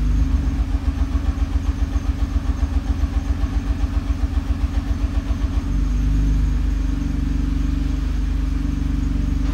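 Nissan GT-R R35's VR38DETT twin-turbo V6 idling with an engine misfire, a rhythmic popping pulse about six times a second, then smoothing out to a steady idle about six seconds in. This is the rattle-and-pop that is often mistaken for a failing bell housing.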